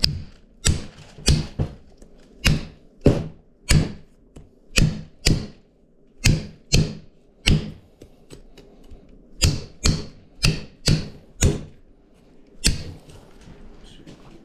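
About nineteen hard blows struck into a whole lamb carcass, in uneven runs of two to six with short pauses, cracking through the bone so the carcass can be flattened for butterflying.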